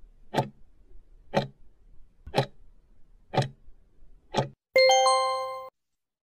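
Countdown-timer sound effect: five clock ticks, one each second, then a bell-like chime that rings for about a second and cuts off abruptly, signalling that the answer time is up.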